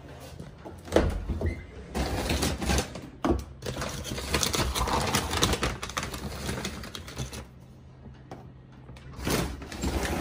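Dry dog food scooped and poured into a bowl: a dense rattle of kibble lasting several seconds, with a couple of sharp knocks before it and another burst of rattling near the end.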